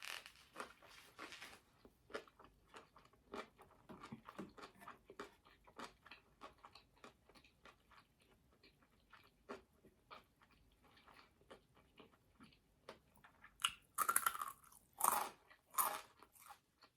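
Close-up chewing of crunchy food, a run of small crisp crackles, with several louder crunching bites near the end.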